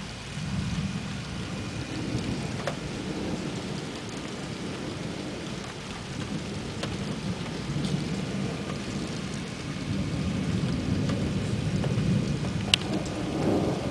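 Thunder rumbling low over steady rain, swelling and easing off several times. A single sharp tick near the end.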